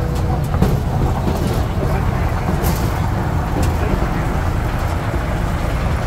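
Engine of a tourist road train's tractor unit running with a steady low rumble, heard from an open carriage as the train rolls along.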